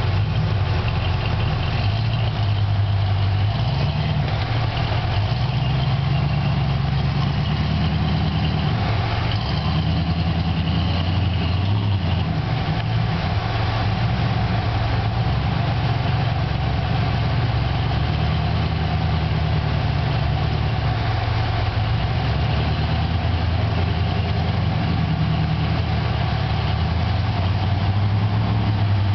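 Rock crawler's engine running at low revs while it creeps over boulders, the pitch rising and falling a little every few seconds with the throttle.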